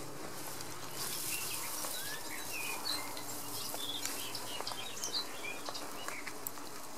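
Songbirds chirping over the rustle and crackle of a dry-grass tinder bundle being handled and blown on to bring an ember to flame.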